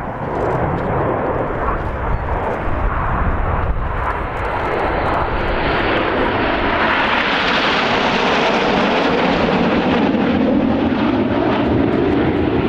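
A formation of Red Arrows BAE Hawk T1 jets flying past overhead: the jet roar builds for several seconds, is loudest a little past halfway, then sweeps down in pitch as the aircraft pass and fly on.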